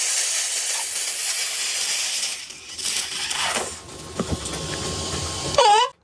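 Carbonated cola foaming up out of a plastic bottle with a steady fizzing hiss that thins out after about two seconds. In the last half-second a plastic toy horn gives a short loud hoot.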